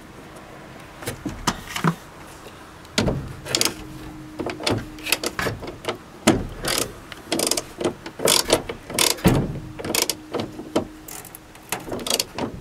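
Socket ratchet wrench clicking in short repeated bursts as a small nut on the wiper linkage is tightened.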